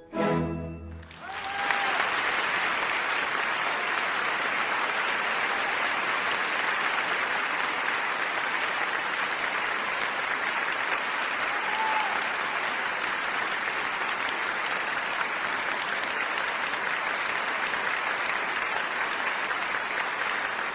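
The orchestra's closing chord, cut off about a second in, followed by a theatre audience applauding steadily.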